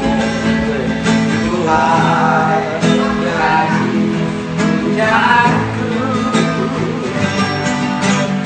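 Music: acoustic guitar strumming the song's accompaniment, with a wavering melody line over it, in a passage without sung words.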